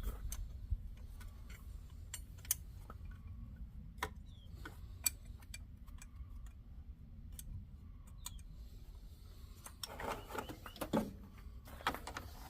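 Scattered metallic clicks and clinks of hand tools against metal parts, a few seconds apart and irregular, over a low steady rumble; a denser patch of clattering and rustling near the end.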